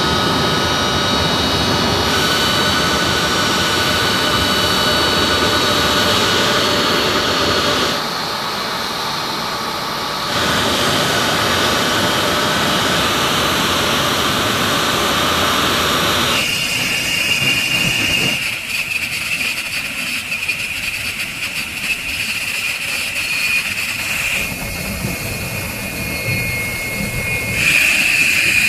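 Four turbofan engines of a C-17 Globemaster III (Pratt & Whitney F117) running on the ramp: a steady jet whine over a broad rumble, briefly dipping twice. About 17 seconds in, the sound changes to a thinner, steady high whine with little rumble: a jet aircraft on the flight line.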